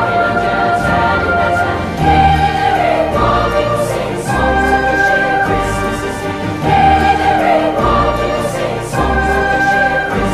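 Background music: choir-like singing in long held notes over a pulsing bass line.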